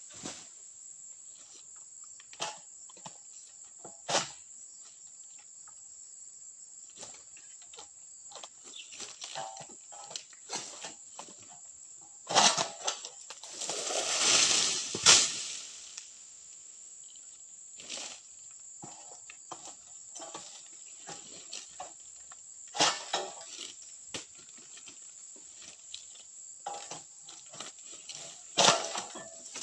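Steady high-pitched insect drone, like crickets or cicadas, under scattered sharp knocks and rustles from pruning oil palm fronds with a pole sickle, with a loud rustling rush about halfway through, like a cut frond falling through the foliage.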